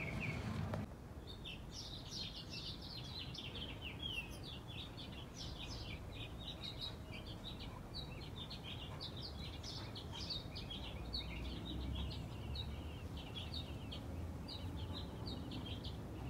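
Small birds chirping continuously: a dense, overlapping run of short high chirps, over a faint low background rumble.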